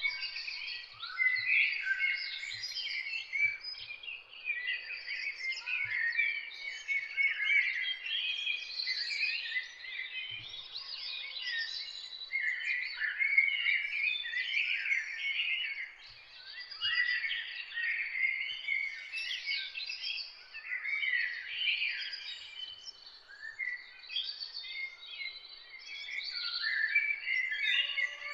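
A garden chorus of many small birds chirping and twittering at once, with short calls overlapping in a dense, continuous jumble.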